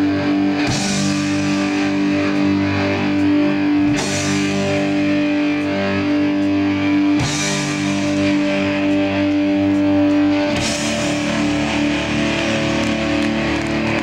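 Live rock band with distorted electric guitar, bass and drums: a held, ringing chord struck again together with a drum hit about every three seconds, moving to a new chord about ten seconds in.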